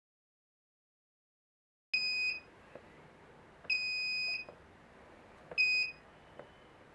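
Buzzer of an Arduino ultrasonic-sensor safety alarm sounding three high, steady beeps of uneven length, the first about two seconds in, with faint clicks between them.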